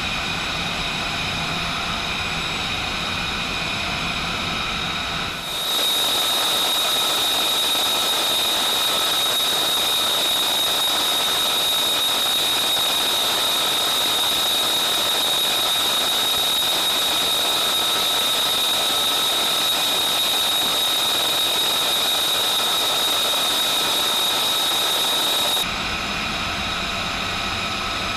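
Steady, high-pitched aircraft turbine whine of jets running on the flight line, with a piercing whistle-like tone. It jumps to a louder, shriller whine about five seconds in and drops back near the end.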